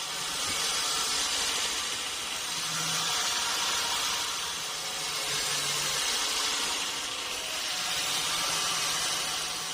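Band sawmill running, a steady hissing machine noise that swells and eases every couple of seconds.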